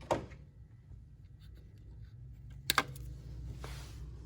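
Plastic zip tie being tightened by hand around a capped PCV port: two sharp clicks, one at the start and a doubled one a little under three seconds in, with faint light ticks of handling between.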